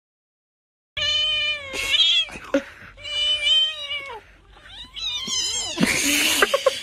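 Cat yowling: three drawn-out, wavering caterwauls, the first starting about a second in. Near the end comes a harsh, noisy burst with sharp clicks.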